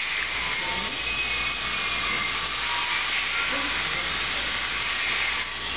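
Single-cylinder steam engine driving a DC generator, with a steady hiss of steam and running machinery.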